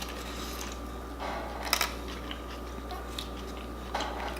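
A first bite taken into a bacon cheeseburger, followed by quiet chewing: a few faint soft crunches and small clicks, with the loudest about a second and a half in.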